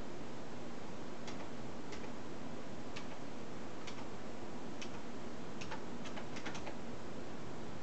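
Faint, slightly uneven ticking, about one click a second with a quick run of clicks a little past the middle, over a steady background hiss.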